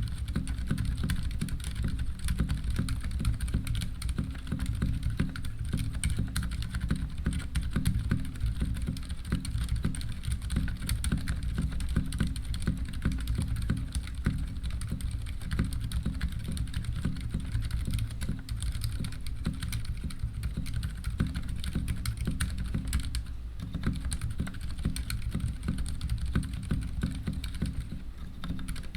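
Continuous fast typing on a Ducky One 2 Mini mechanical keyboard with unlubed Cherry MX Silent switches and PBT keycaps: a steady stream of dull, low key thocks, briefly easing off about two-thirds of the way through.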